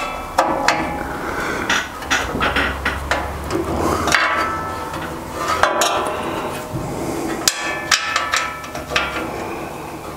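Irregular knocks and clanks with a short metallic ring, from the steel extension table of a table saw being tapped and adjusted to bring it level.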